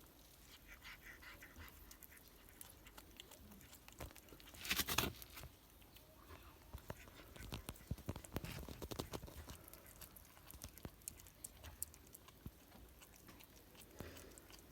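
A cat chewing and biting on a chunk of raw meat, with irregular small wet clicks and crunches. A brief louder noise comes about five seconds in.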